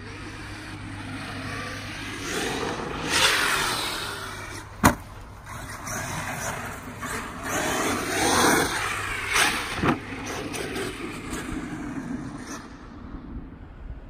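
Electric RC car driving on dirt, its motor whining up and down in pitch as it speeds up and slows. There is a sharp impact about five seconds in and a smaller one near ten seconds.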